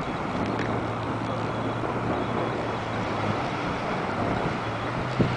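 Steady rushing noise of wind and breaking surf on a rocky shore, with a short bump about five seconds in.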